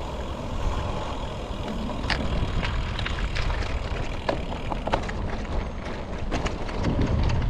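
Trek Domane SL5 carbon road bike rattling as it rides over rough, cracked and patched tarmac: a string of sharp clicks and rattles starting about two seconds in and growing busier, over a steady low rumble of tyres and wind.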